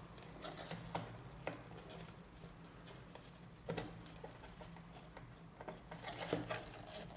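Faint handling noises of a laser-printer drum unit's charge roller being fitted into its plastic frame: light rubbing and a few scattered small clicks, the clearest a little under four seconds in and another near the end.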